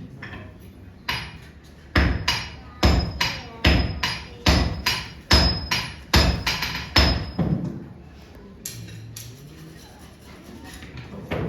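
Hammers striking steel on an anvil while katana steel is forge-folded. After a single blow about a second in comes a regular run of about a dozen ringing strikes, roughly two a second, which stops a little past halfway through.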